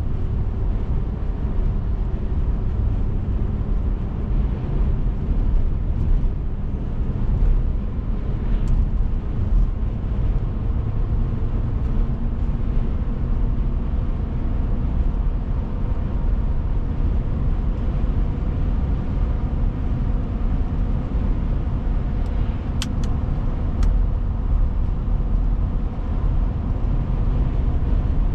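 Steady rumble of a car driving, road and engine noise heard from inside the cabin, with a few sharp ticks about three quarters of the way through.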